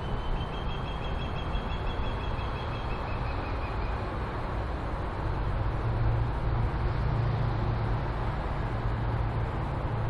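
BNSF diesel freight locomotive approaching from a distance, its engine a steady low rumble that grows a little louder about six seconds in. A high trill of quick repeated notes sounds over it for the first few seconds.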